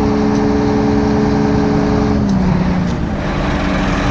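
Vehicle engine running with a steady drone over a heavy rumble. Past two seconds in, its pitch drops and the drone fades.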